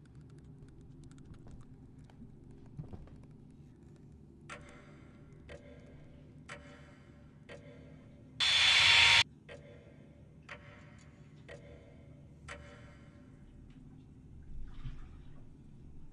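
Sharp, even ticks about once a second, clock-like, over a low steady hum. Near the middle, a sudden loud, harsh burst of noise lasts under a second and cuts off abruptly.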